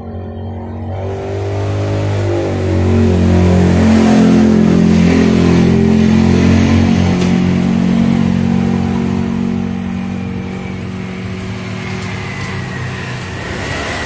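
A motor vehicle engine revving up, its pitch and level rising over the first few seconds, then running steadily and slowly easing off; loudest about four seconds in.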